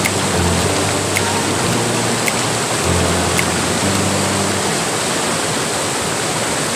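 Rapids of a boulder-strewn mountain river rushing and cascading over rocks in a steady, loud wash of white water.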